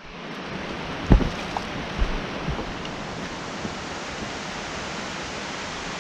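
Steady rush of river water, with a few footsteps thudding on a dirt forest trail about a second in and just after, dying away as the walker moves off.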